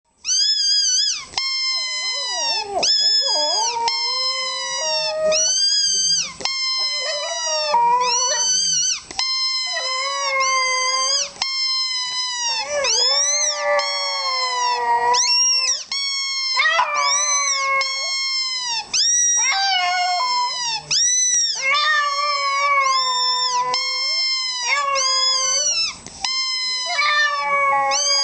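Shih Tzu howling, or 'singing', in a long string of short, high howls, each rising and falling in pitch, about one a second with barely a break.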